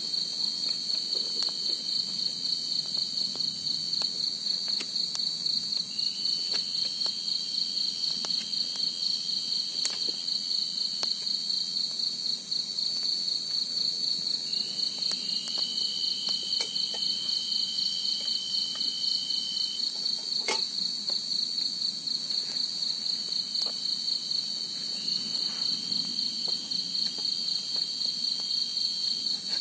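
A steady high-pitched chorus of night insects trilling without a break, joined three times by a lower, steadier insect call that holds for several seconds each time. Scattered sharp clicks run through it.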